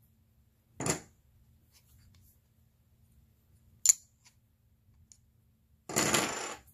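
Poker-chip-style game pieces handled in the hand: two sharp clicks as the chips knock together, then a longer scraping clatter near the end as they are slid against each other.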